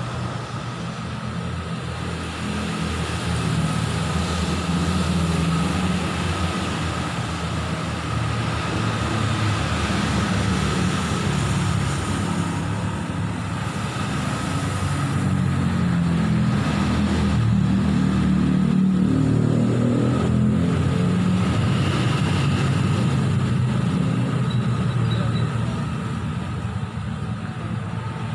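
Yamaha R25's parallel-twin engine running, its speed rising and easing gently a few times, with a steady high whine over the engine note.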